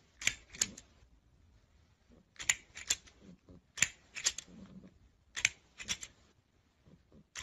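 A plastic crocodile grabber toy snapping its jaws: sharp plastic clacks in pairs or threes, about every second and a half.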